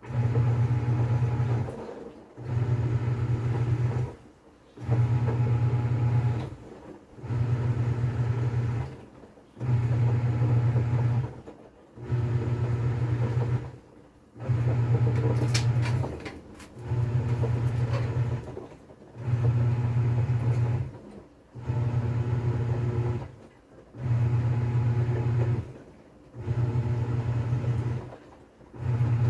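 TCL 7.5 kg top-load washing machine agitating in its wash cycle. The motor hums in bursts of about two seconds, with a short pause between each as it reverses direction, about one every two and a half seconds. The bursts start abruptly out of near silence.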